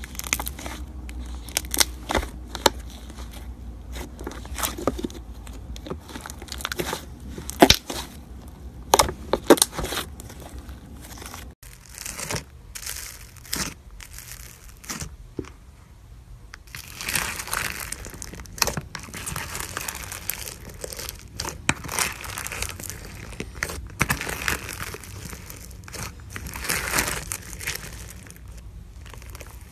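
Hands squishing slime in a container, with sharp separate pops and clicks as trapped air bursts. After a cut about 12 s in, clear purple slime full of small foam beads is pressed and kneaded, giving dense crunchy crackling.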